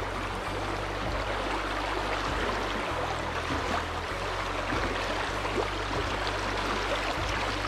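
Shallow river water rushing steadily over a rocky riffle, with a low rumble underneath.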